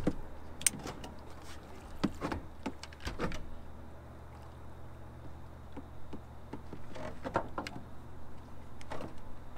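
Steady low hum of a boat's outboard motor running, with scattered knocks and clatters of gear being handled on the boat deck, in clusters about two seconds in, around three seconds in, and near the end.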